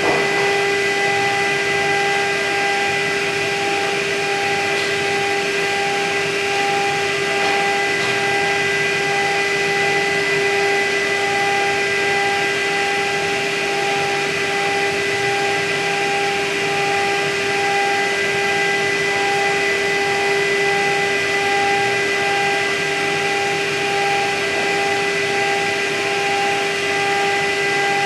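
CNC router spindle running at constant speed with a steady whine while a small end mill cuts plastic, over an even hiss of air blowing from nozzles onto the cutter.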